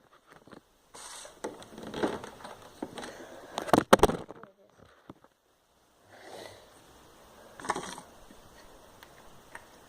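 Plastic glue bottle being handled and squeezed as glue goes into the slime bowl: rustling and scraping, with a few sharp clicks about four seconds in, then more handling near the end.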